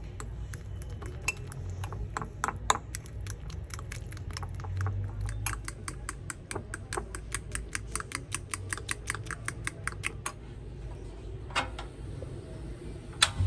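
A metal utensil beating pancake batter in a glass bowl, clinking against the glass, sparse at first and then quick, about five strokes a second, stopping about ten seconds in. Near the end, a couple of sharp clicks as the knob of a portable gas stove is turned.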